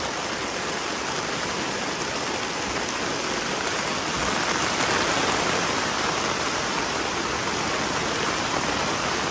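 Heavy rain pouring down steadily, a continuous hiss that grows a little louder about halfway through.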